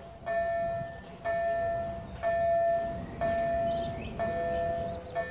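Railway level-crossing warning bell ringing about once a second, each stroke ringing on until the next, warning that a train is approaching. A second, lower steady tone joins about four seconds in.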